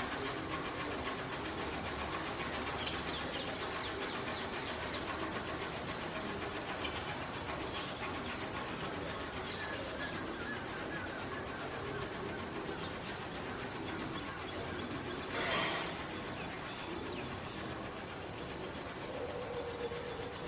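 Outdoor morning birdsong: a bird repeats a rapid series of high chirps in long runs, pausing twice, over a steady background of ambient noise. A brief noisy burst comes about three quarters of the way through.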